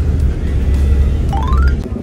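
Background music with a strong, steady bass, ending in a quick rising sound effect that cuts off shortly before the end.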